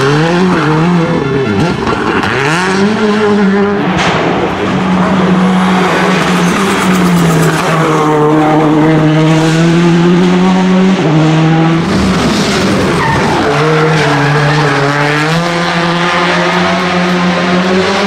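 Citroën Xsara WRC rally cars' turbocharged four-cylinder engines revving hard and dropping back through gear changes as the cars power through corners, in several separate passes. Tyre noise is heard at times.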